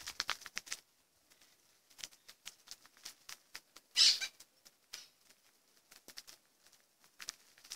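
Faint, irregular clicking and rustling, with a louder scratchy rustle about four seconds in.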